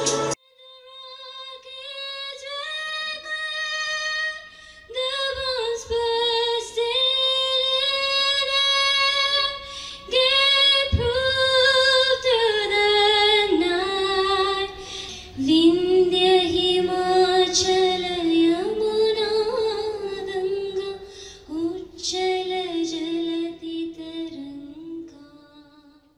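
A woman singing a slow solo melody into a handheld microphone with no instruments audible: long held notes with vibrato that slide from one pitch to the next, with short breaks for breath. The singing trails off at the end.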